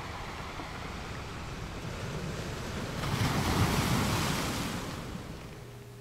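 Heat gun blowing hot air over freshly poured resin in a silicone mold: a steady rushing of air that swells about three seconds in and fades out near the end.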